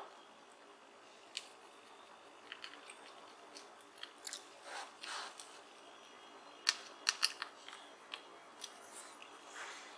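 Scattered light clicks, taps and short scrapes of a plastic Bluetooth speaker housing and its circuit-board base being handled and fitted back together, with a quick cluster of clicks about seven seconds in.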